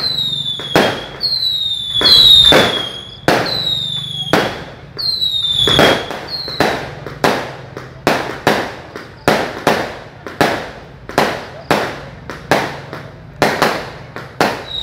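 Fireworks going off in quick succession: a dense run of sharp bangs, about two to three a second, mixed with short whistles that fall slightly in pitch.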